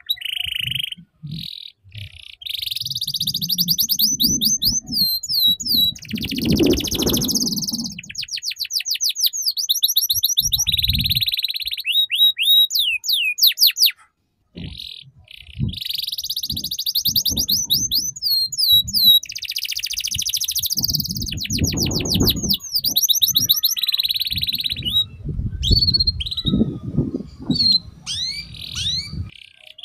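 Domestic canary singing long, fast 'ngeriwik' phrases of rapid trills and chirps, the kind of master song played to teach young canaries, with a brief pause about halfway through. Low rumbling sounds underneath at times.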